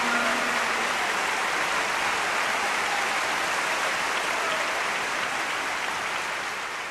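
Audience applauding, a dense steady clapping that begins to fade away near the end.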